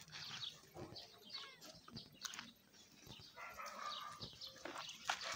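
Small birds chirping repeatedly, over the soft scuffling of puppies tumbling on gravel. About three and a half seconds in, a steadier animal sound with a held pitch begins.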